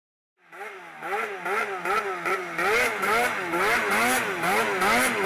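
Snowmobile engine running hard, its pitch rising and falling over and over, about one and a half swings a second, as the throttle and load change. It starts about half a second in.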